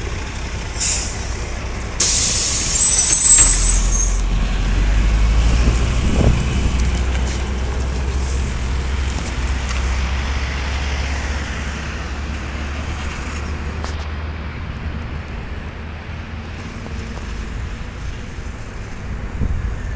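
MAZ-105 city bus giving a sharp hiss of compressed air about two seconds in, then its diesel engine pulling away from the stop with a low rumble that slowly fades as it drives off.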